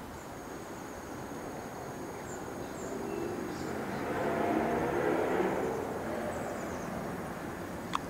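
A vehicle passing on the street, swelling to its loudest about halfway through and then fading, over steady outdoor background noise; a sharp click near the end.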